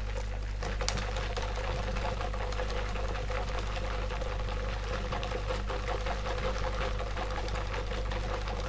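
Rapid back-and-forth scratching of a colouring tool on paper as a drawing is filled in, over a steady low electrical hum.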